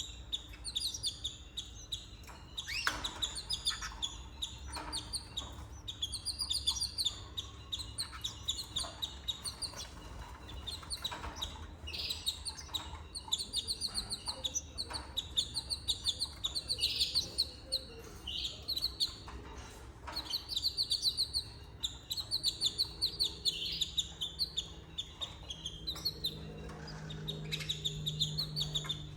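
Canaries chirping in rapid runs of high, quickly repeated notes, again and again.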